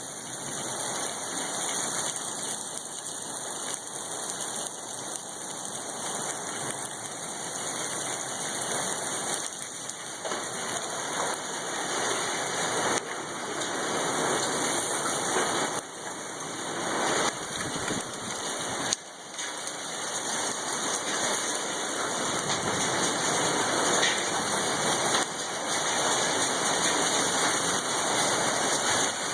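Hailstorm with wind: a dense, steady hiss of hail and rain pelting down, slowly building louder, with two brief drops in level past the middle.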